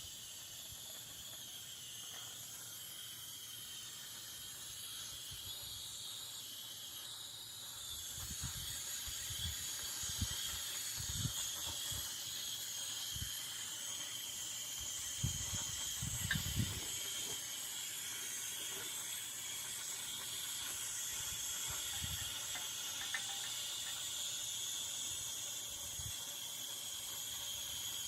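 Gas torch burning with a steady hiss while it heats and cleans the spider gears and differential carrier before welding, a little louder from about eight seconds in. Scattered low bumps of handling are heard in the middle.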